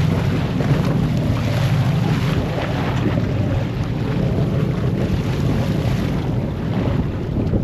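Wind buffeting the microphone on a boat at sea, over a steady low hum and the wash of the water.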